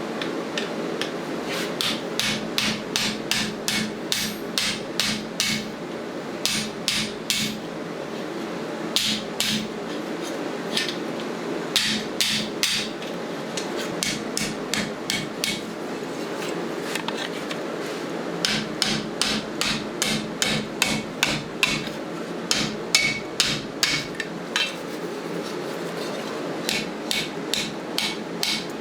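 Hand hammer striking steel on an anvil in runs of blows, about three a second, with short pauses between runs, over a steady low hum.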